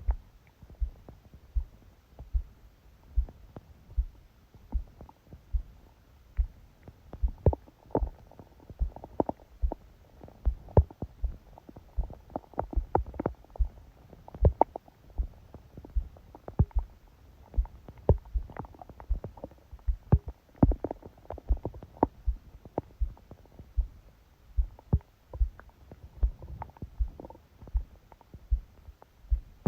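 A sleeping person's stomach gurgling and rumbling, picked up by a phone pressed on the belly, over a steady heartbeat thumping about four times every three seconds. The gurgles come thick and irregular through the middle and thin out near the end, leaving mostly the heartbeat.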